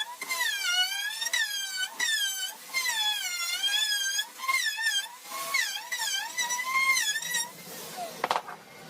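A very high-pitched, voice-like sound in short phrases whose pitch slides up and down, stopping about a second before the end, followed by a sharp click.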